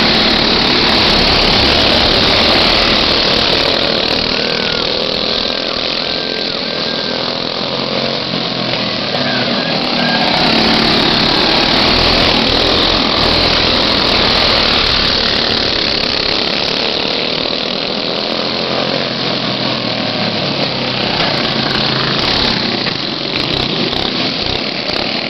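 Several racing go-kart engines buzzing as a pack laps the track, growing louder twice as the karts pass close.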